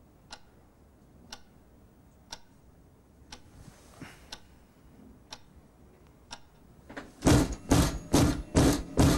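Wall clock ticking slowly and steadily, once a second. About seven seconds in, a run of loud, sharp strikes begins, several a second, from a manual typewriter being hit hard.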